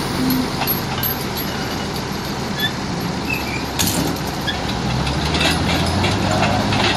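Heavy tow truck's engine running steadily, with a single sharp clank a little under four seconds in.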